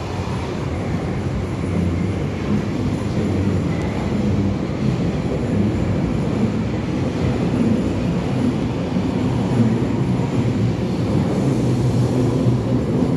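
Berlin U-Bahn train running along an underground station platform and on toward the tunnel, a steady loud rumble of wheels on rails and traction motors.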